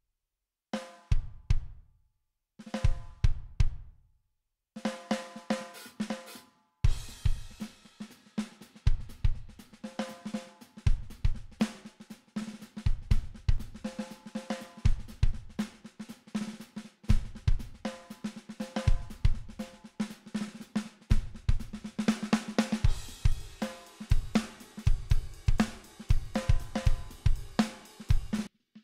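A sampled drum kit (kick, snare, hi-hat and cymbals) playing back through octave-fuzz and vari-mu compressor plugins, which give it a saturated, ringing tone. It starts and stops in three short fragments, then runs as a steady groove from about five seconds in and cuts off just before the end.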